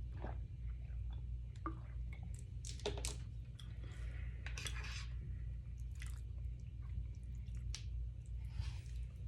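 A person chewing food close to the microphone: irregular wet smacks and small crunches. A steady low hum runs underneath.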